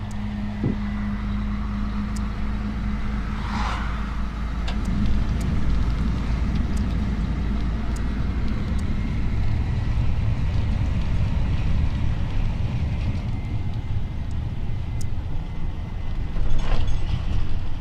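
Semi-truck driving at a steady pace: a continuous engine drone and road noise. There are two brief louder hissing sounds, about three and a half seconds in and near the end.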